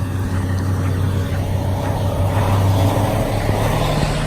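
A motor vehicle's engine running close by with a steady hum, its pitch stepping up about three and a half seconds in as it revs.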